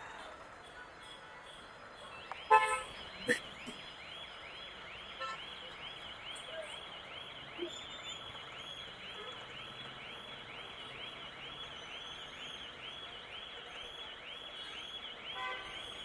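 An electronic alarm nearby warbles, a rising-and-falling whoop repeating about twice a second. It starts about two and a half seconds in with a short vehicle horn honk and a sharp click.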